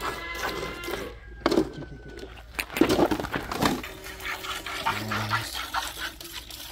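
Animal calls in a farmyard, with a few pitched cries in the first two seconds and a low drawn-out call about two-thirds of the way through, while a cow is hand-milked into a metal pail.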